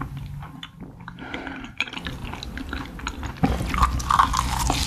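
Close-up eating sounds: wet chewing of spicy braised cutlassfish with small mouth clicks, growing louder about three and a half seconds in as a big bite is taken.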